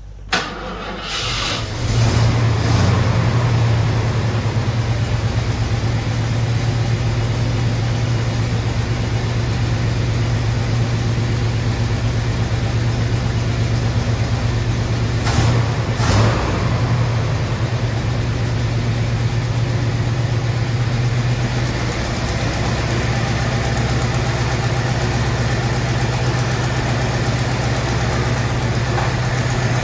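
AMC V8 engine cranking and catching right at the start, then running at a steady idle with a strong low hum. Two brief knocks come about fifteen seconds in, and the idle eases down slightly a little after twenty seconds.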